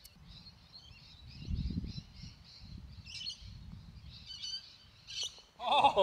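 Birds chirping and calling continuously, with a brief low rumble about a second and a half in. A louder voice breaks in just before the end.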